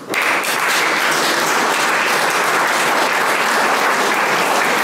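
Audience applauding, breaking out suddenly and keeping up a steady clapping.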